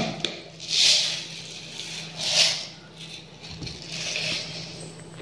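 Large round beads rattling in a small plastic lid as it is moved, in three short bouts.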